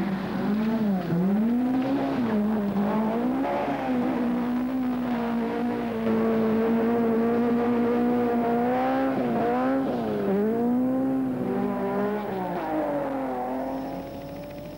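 Rally car engine driven hard, the note climbing and then dropping sharply several times at gear changes and lifts, holding steady for a few seconds in the middle, and fading away near the end.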